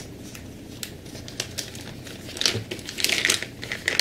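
Plastic packaging crinkling as it is handled, in quick irregular crackles that grow busier and louder a little past halfway.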